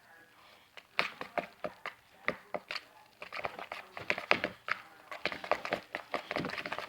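Stirring a sticky mix of white glue and shaving cream with a stick: a quick, irregular run of wet clicks and crackles that thickens in the second half.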